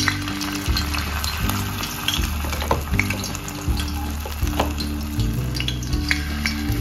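Battered chicken pieces frying in hot oil in a stainless steel pan: a steady sizzle with scattered crackles.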